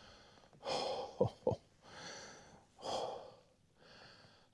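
A man breathing heavily, in and out about once a second, with two short, sharp, louder puffs about a second in.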